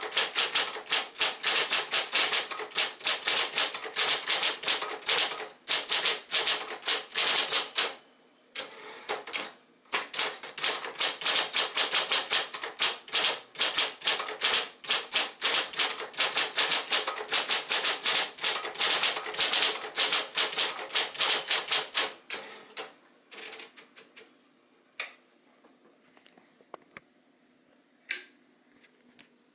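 1972 Royal Saturn electric typewriter being typed on: fast runs of crisp keystroke clacks with short pauses, thinning to a few scattered strokes after about twenty-two seconds, over a faint steady hum.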